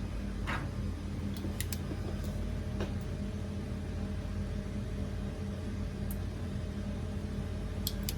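Steady low electrical or fan hum, with a few faint, sharp clicks and taps scattered through it.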